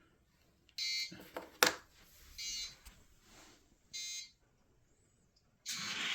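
Racing video game's start countdown: three electronic beeps about a second and a half apart, with a sharp click after the first. Near the end comes a loud rush of noise as the cars launch.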